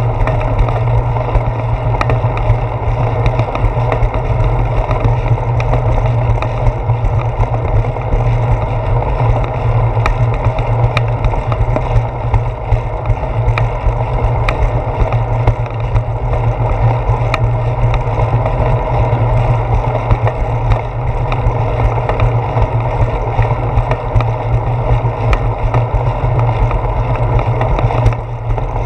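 Steady wind and road rumble on a handlebar-mounted GoPro Hero 4 as a bicycle rolls along a concrete sidewalk, with frequent small clicks and knocks from the bike and mount jolting over the pavement.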